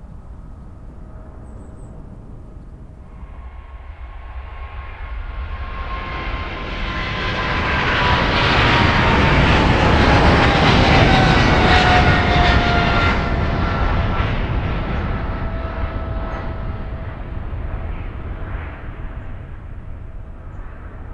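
Jet airliner's turbofan engines at takeoff power passing by: the roar swells over several seconds, peaks about halfway through, then fades. An engine whine slides down in pitch as the aircraft goes past.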